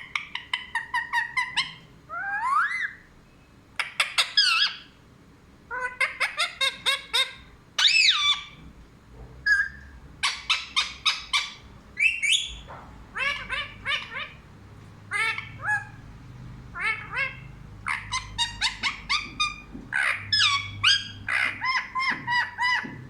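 Pet parrot calling: runs of short, harsh calls several a second, broken by a few rising whistled glides.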